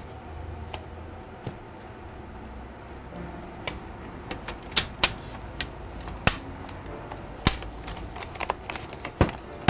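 A series of sharp, irregularly spaced clicks and snaps as the aluminium bottom cover of a Dell XPS 13 9350 laptop is pressed down along its edges, seating onto the chassis. The loudest snaps come past the middle.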